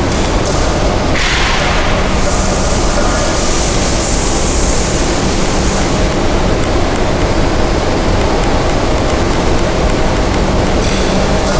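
CNC sink-polishing machine running, its motor humming steadily under a loud, even grinding hiss of the polishing head on a sink. The hiss turns brighter for a few seconds about two seconds in.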